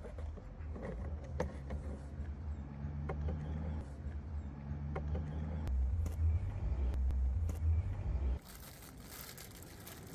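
A vehicle engine running steadily nearby as a low drone, with a few light plastic clicks and scrapes as a car door mirror's glass assembly is worked loose by hand. About eight seconds in the drone cuts off and a soft hiss and crinkle of a plastic bag takes over.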